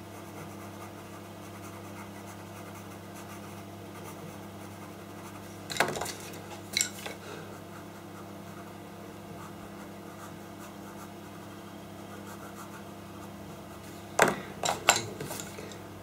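Pastel pencil scratching over pastel paper in short shading strokes, a few of them louder and sharper about six seconds in and again near the end.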